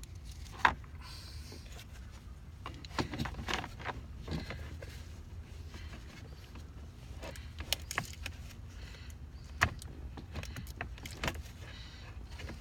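Scattered clicks and taps of a plastic steering-column cover and its rubber gasket being handled and fitted, with sharp clicks shortly after the start and again about three-quarters of the way through, over a steady low rumble.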